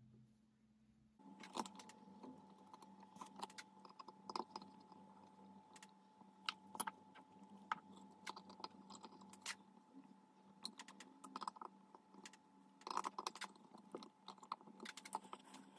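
Faint, irregular clicks and light taps of small metal parts being handled and fitted: a lead screw and brass nut going into a Proxxon MF70 mini milling machine's column. A faint steady hum starts about a second in.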